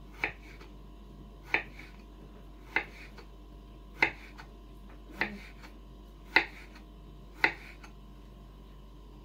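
Kitchen knife slicing a cucumber on a wooden cutting board: seven sharp taps of the blade meeting the board, about one every second and a bit, over a faint steady hum.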